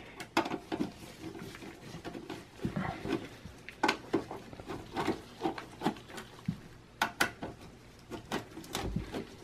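Phillips screwdriver unscrewing the power-supply screws in the steel back panel of a Dell Inspiron 660s desktop: an irregular run of small metallic clicks and scrapes as the bit turns the screws out.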